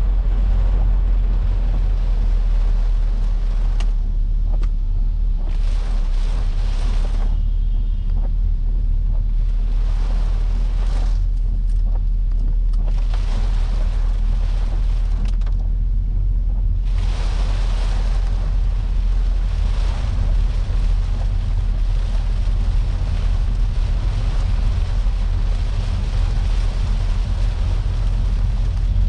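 Inside a Peugeot 406 saloon driving through heavy rain: a steady low road and engine rumble under the hiss of rain on the roof and windscreen and of tyres on the flooded road. The hiss swells and fades and is heaviest from a little past halfway on.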